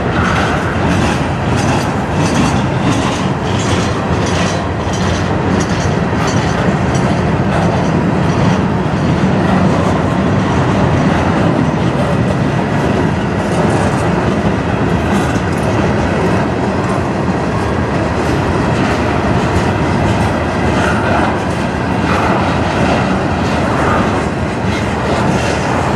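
Freight cars of a manifest train rolling past at close range, centerbeam flatcars stacked with lumber and then tank cars: a steady rumble of wheels on rail with regular clickety-clack over the rail joints, clearest in the first several seconds.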